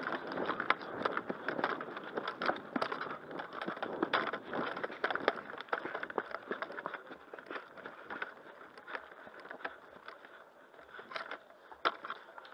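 Footsteps, clothing rustle and the rattle of a player's airsoft kit while walking, with irregular clicks and knocks. The movement noise is busier in the first half and eases later, with one sharp knock near the end.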